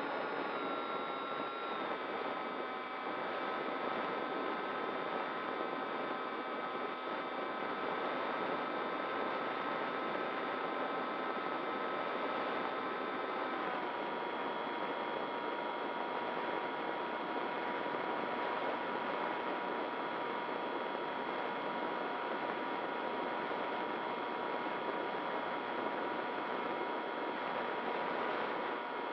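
A radio-controlled model plane's motor and propeller whining steadily in flight, with a hiss of air rushing past, heard from the plane's own onboard camera. The whine's pitch steps down slightly about 2 s in and again about 14 s in as the throttle is eased back.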